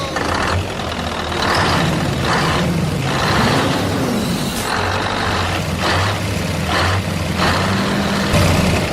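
Truck engine running steadily, with repeated short hissing bursts.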